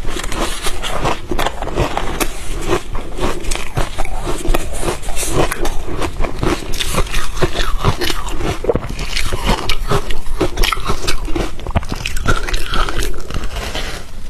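Ice being bitten and crunched between teeth close to the microphone: a dense, rapid run of crunches and cracks that keeps going.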